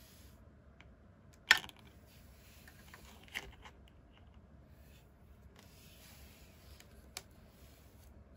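Small plastic toy pieces of a miniature Hello Kitty ambulance playset being handled and set down: three sharp plastic clicks, the loudest about a second and a half in and a fainter one near the end, with soft handling rustle between.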